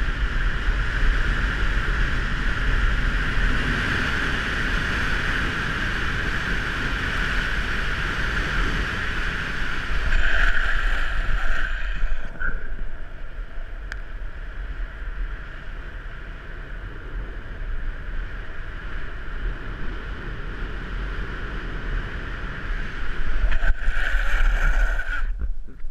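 Wind rushing over a helmet-mounted GoPro and urethane longboard wheels rolling fast on asphalt during a downhill run. The noise eases after about twelve seconds as the board slows into a hairpin, swells again near the end, then cuts off as the rider comes to a stop.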